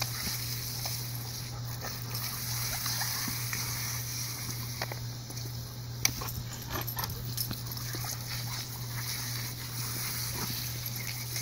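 Oscillating lawn sprinkler spraying with a steady hiss while a dog snaps and splashes at the water jets, making scattered short snaps and splashes, the sharpest about six seconds in.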